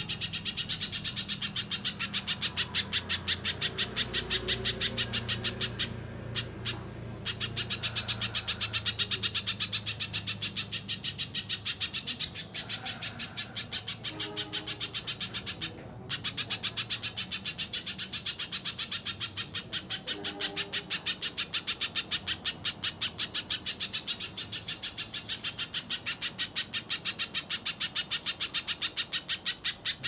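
Little spiderhunter calling steadily in a fast run of sharp, high notes, about five a second, with brief pauses about six and sixteen seconds in.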